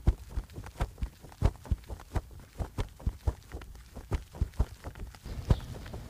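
Footsteps of a person walking at a brisk pace, a run of short thuds about three to four a second.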